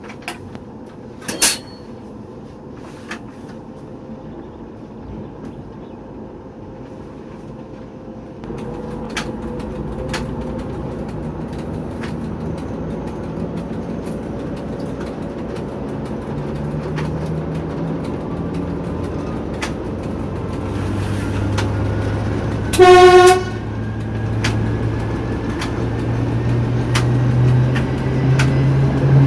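TEP70 diesel locomotive's 16-cylinder diesel engine taking load and pulling away, its note rising and growing louder from about eight seconds in, with the turbocharger whistle climbing in pitch in the second half. A short locomotive horn blast sounds about 23 seconds in, and a sharp click comes near the start.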